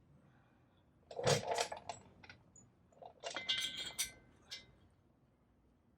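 Loose steel head bolts clinking and rattling against each other and against metal as they are handled, in two short clusters with a brief ringing tone in the second.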